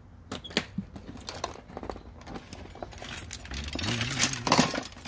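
Irregular light clicks and metallic rattling from a tape measure being handled and pulled out. A short, low vocal hum comes about four seconds in.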